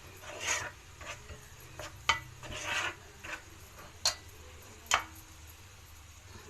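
A spoon stirring flour into hot ghee in a pot to make a roux, with scraping swishes and three sharp knocks of the spoon against the pot. There is a faint sizzle underneath.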